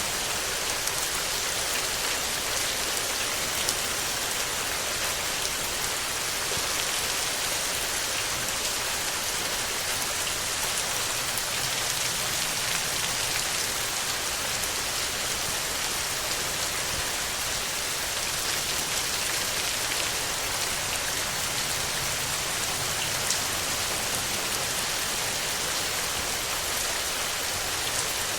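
Steady rain falling on a surface, an even hiss with the odd distinct drop.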